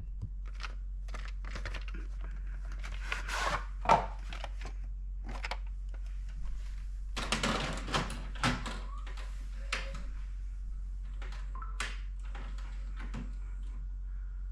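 Scattered clicks, knocks and thunks of handling or a mechanism, irregular and loudest about four seconds in and again around seven to eight seconds, over a steady low electrical hum.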